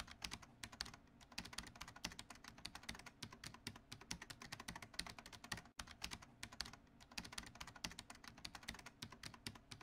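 Faint rapid computer-keyboard typing: a dense run of irregular key clicks, with a brief break a little before the middle.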